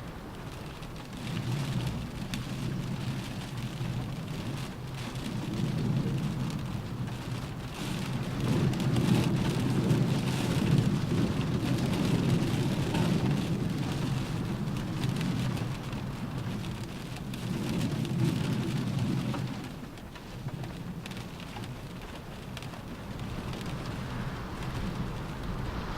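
Rain falling on a car roof, a steady hiss of drops, over a low rumble that swells and fades in waves and eases off about twenty seconds in.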